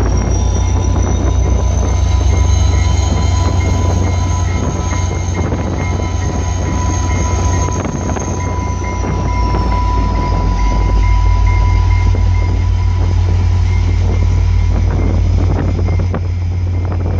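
VIA Rail diesel locomotive and passenger coaches rolling slowly past, engine running, with a steady tone and a high whine that rises and then falls away about halfway through. Heavy wind rumble on the microphone.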